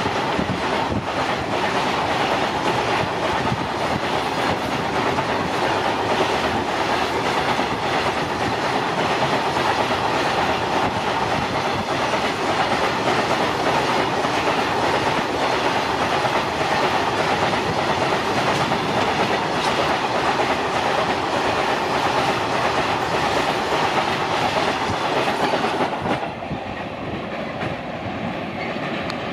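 Train running along the track, its wheels clattering steadily over the rail joints. The sound drops and thins about 26 seconds in.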